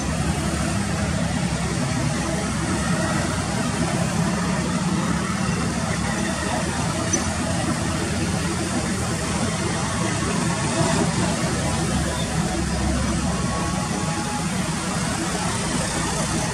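Boeing 787's jet engines running at taxi power, heard from a distance as a steady rumble and hiss.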